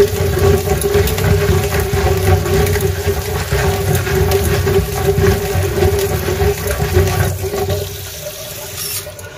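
Tap water pouring and splashing into a plastic mesh colander while jackfruit seeds are rubbed against the mesh by hand to scrub off their skins. A steady rush with a held tone under it, growing quieter about seven seconds in.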